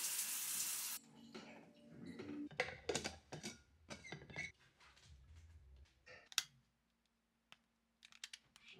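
Running shower water hissing, cut off about a second in, then faint scattered clicks and taps of small objects being handled.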